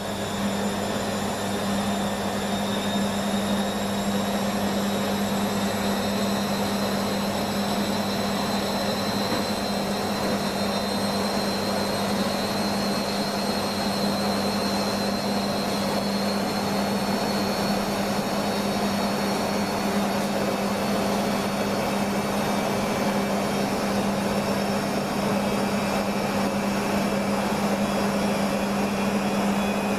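Beko washing machine running steadily, likely in its spin, with a constant motor hum and a thin high whine over the rush of the turning drum.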